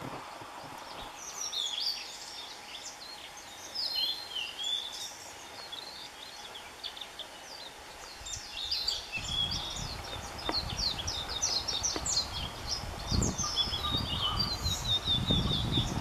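Wild songbird singing: a varied string of short, high chirps and whistled notes, ending in a fast run of repeated notes. A low rumbling noise comes in from about halfway.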